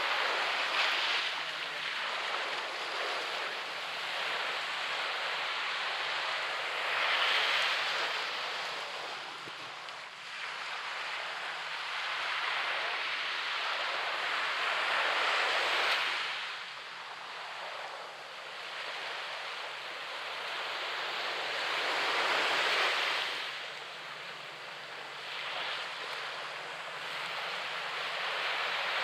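Surf breaking and washing up a sandy beach: a rushing hiss that swells as each wave breaks and ebbs between them, with a wave about every six to eight seconds.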